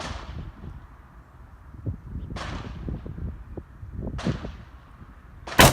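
Gunshots at a rifle range: three fainter cracks about two seconds apart, each with a short echo, then one much louder rifle shot close by near the end.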